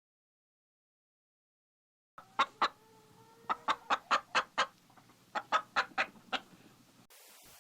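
A hen clucking: two clucks about two seconds in, then two quick runs of clucks, five or six each.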